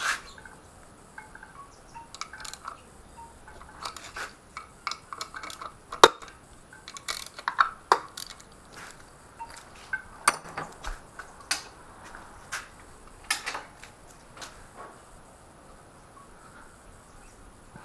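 Hand tools and small metal engine parts clinking and clanking at irregular intervals while the cam chain tensioner of a KTM 250 EXC-F engine is worked loose, the sharpest clank about six seconds in and another about ten seconds in.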